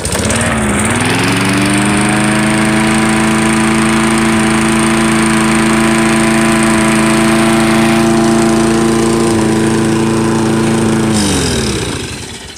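Push mower's small single-cylinder engine running steadily at high speed with the throttle clamped at about 3600 rpm, now firing well on a good ignition coil. Its pitch dips briefly near the start, then holds; about eleven seconds in it is shut off and winds down to a stop.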